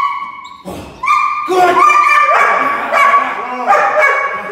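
A 5-month-old German Shepherd puppy barking over and over at a protection-training decoy, in short, high-pitched barks about half a second apart.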